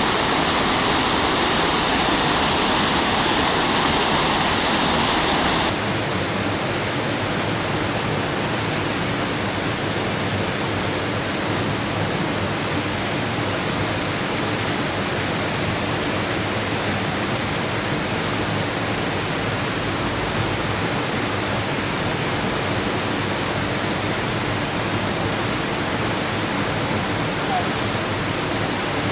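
Rushing whitewater of The Sinks waterfall on the Little River, a steady full noise of falling water. About six seconds in it drops abruptly to a slightly quieter, duller rush.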